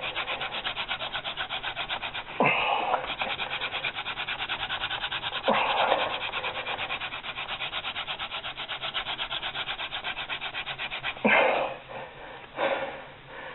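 Wooden hand-drill spindle spun back and forth between the palms in a two-branch baseboard: a fast, even wood-on-wood rubbing at about five strokes a second, broken by three louder swishes. The drilling stops about eleven seconds in, after the board has been ground hot enough to smoke toward an ember.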